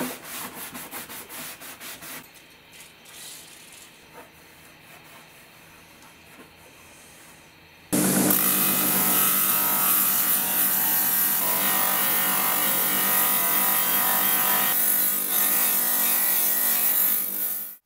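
Rusty steel hand-saw blade scrubbed by hand with an abrasive pad, quick rubbing strokes that die down after about two seconds. About eight seconds in, a Ryobi bench grinder's wire wheel comes in loud and steady with a low motor hum as the blade is held against it to strip the rust, stopping abruptly near the end.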